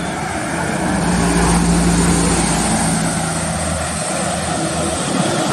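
Intercity coach's diesel engine running as it drives past, a steady low engine note with tyre and road noise that swells as it comes alongside and then eases as it pulls away.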